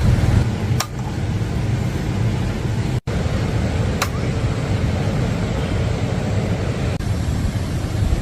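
Strong gusty wind buffeting the microphone, a loud, uneven low rumble, with a brief break in the sound about three seconds in.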